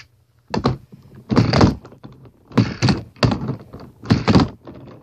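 Handboard (hand-sized skateboard) being popped, flipped and landed: wooden deck and wheels clacking and thunking against a hard surface in five or so quick bursts, as in a kickflip.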